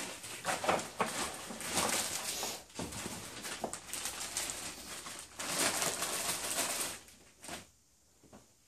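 A plastic packing bag rustling and crinkling as it is crumpled and handled, in uneven bursts that stop about seven seconds in.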